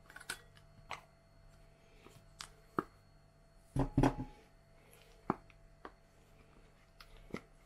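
Silicone spatula scraping thick sour cream out of a plastic tub into a glass bowl: scattered soft taps and clicks of the spatula against the tub and bowl, the loudest a close pair about four seconds in.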